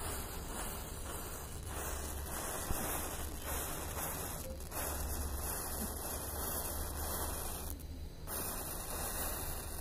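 Row of standing matchsticks burning in a chain reaction, the match heads flaring one after another with a steady hiss, and wind rumbling on the microphone.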